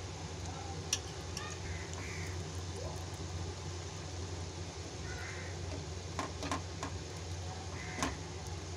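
Spatula stirring thick curry gravy in a non-stick pan, with a few sharp clicks as it knocks the pan, once about a second in and several times near the end, over a steady low hum.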